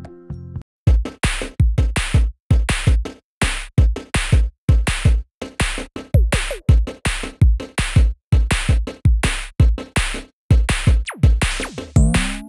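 Background electronic music with a steady drum-machine beat and heavy bass, starting after a brief gap about a second in.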